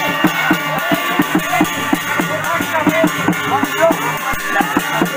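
Upbeat folk-style music with a fast, steady drum beat under a wavering melody, playing for dancing.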